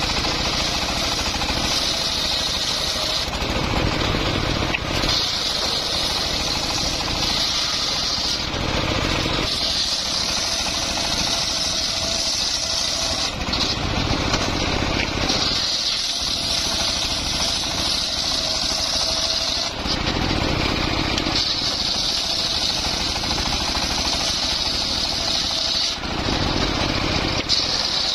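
Engine-driven homemade circular sawmill ripping mahogany. The blade is heard cutting in repeated passes of three to four seconds, with breaks of a second or two between them, while the engine runs on without stopping.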